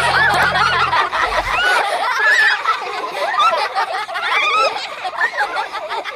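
A group of children laughing and giggling, many high voices overlapping. The low notes of a music track stop about a second in.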